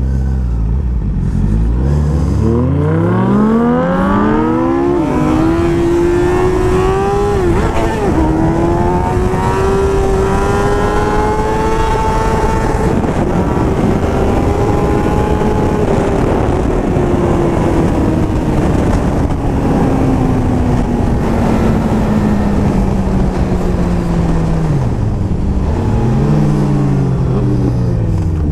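Sportbike engine accelerating hard, its pitch climbing steeply through two quick upshifts in the first several seconds. It then holds high revs at speed under heavy wind rush, the pitch slowly easing off. Near the end the revs dip briefly and climb again.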